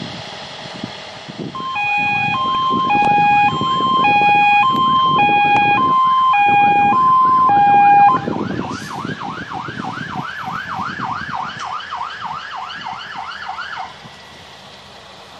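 Emergency vehicle siren sounding close by, first a two-tone hi-lo pattern switching about once a second over the rumble of the vehicle. About eight seconds in it changes to a fast yelp, about three sweeps a second, which grows fainter and stops near the end.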